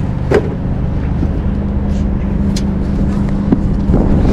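Steady low rumble with a constant hum from a running vehicle engine, with a few short rustles and clicks as a shoe box is opened and a sneaker is unwrapped from a cloth bandana.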